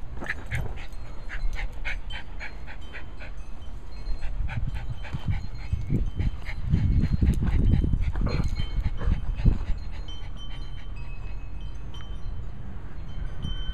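A Cairn terrier panting rapidly and rhythmically. A low rumble on the microphone swells around the middle and is the loudest part.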